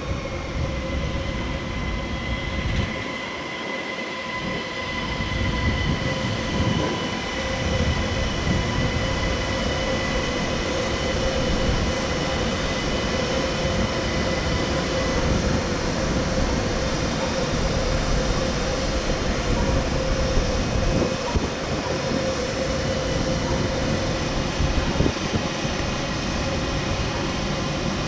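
ÖBB Cityjet electric multiple unit pulling into the station. Its traction motors whine with several steady tones that sag slightly at first and fade about halfway through, over a continuous rumble of wheels on the track.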